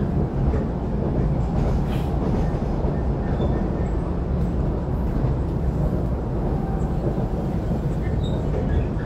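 Cabin running noise of a Taiwan Railways EMU700-series electric multiple unit travelling at speed: a steady low rumble of wheels on rail.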